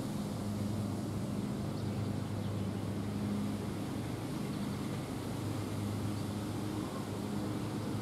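Steady low engine-like hum over a background rush; no siren tone is sounding.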